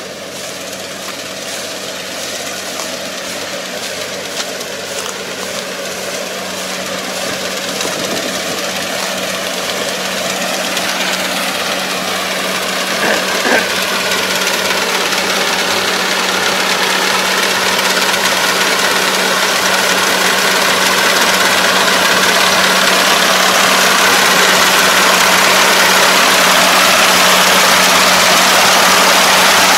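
Four-row combine harvester's engine and cutting and threshing machinery running steadily while it harvests lodged rice. It grows steadily louder as it approaches.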